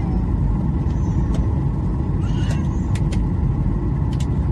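Steady low rumble of a Boeing 737-800's CFM56 engines and the airflow, heard inside the cabin toward the rear during the descent on approach. A few faint light clicks sound through it.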